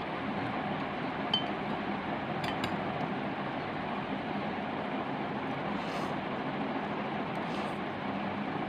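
Chopsticks clinking against a glass bowl: one sharp ringing clink, then a couple of light clicks, followed by two soft slurps of noodles, over a steady background hiss.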